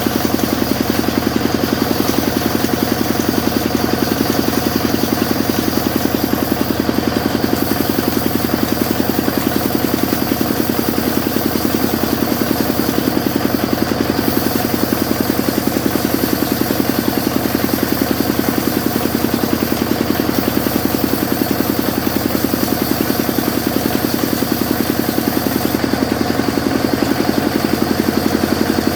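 Sawmill machine running with a steady drone and a fast, even pulse that does not change in pace.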